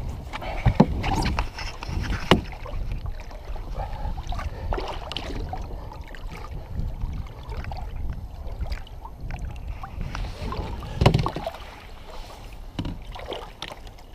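Water sloshing and splashing against the side of a boat as a big pike is held by hand in the water for release. A few sharp knocks come through, the loudest about eleven seconds in.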